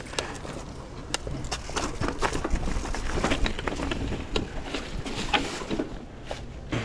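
Mountain bike clattering over a rocky trail: a string of irregular clicks and knocks over a low rumble.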